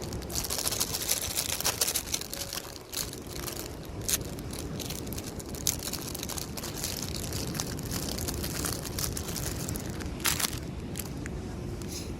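Wind buffeting the microphone, a steady low rumble, with bouts of crinkling and crackling and a few sharp clicks, the crackling heaviest in the first two seconds.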